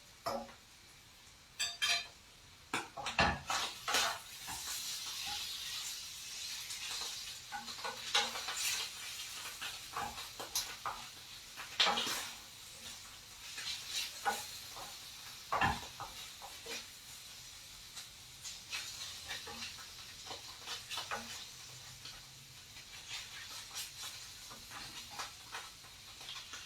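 Food sizzling in a frying pan, with a utensil knocking and scraping against the pan at irregular moments. The sizzle gets going about four seconds in and holds steady.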